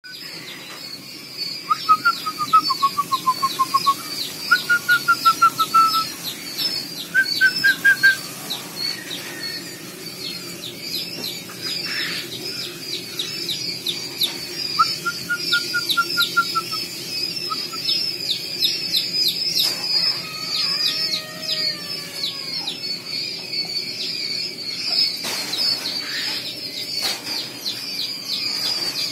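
A brooder full of Japanese quail chicks peeping without pause, a dense chorus of short, high, falling chirps. Louder runs of quick, lower chirps break in several times in the first eight seconds and once more about halfway.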